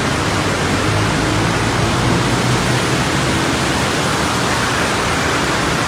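Traffic driving through deep floodwater on a city street: a steady rush and splash of water pushed aside by cars, a bus and motorcycles, with their engines running low underneath.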